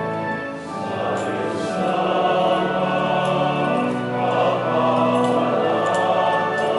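Choir singing a hymn with long held notes: the entrance hymn of a Catholic Mass.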